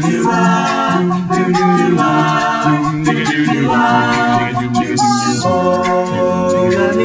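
Background music: an a cappella vocal group singing a Hebrew song in harmony, with no instruments.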